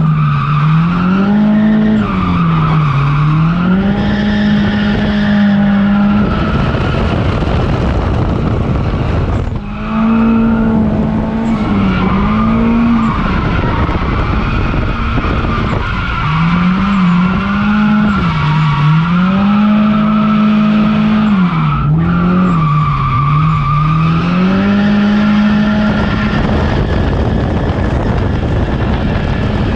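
Nissan 240SX's turbocharged SR20DET four-cylinder revving hard while drifting, heard from inside the cabin. Its pitch climbs and falls again and again and is often held at the top, with two brief lifts, about a third of the way in and again near three-quarters. Tyres squeal under it.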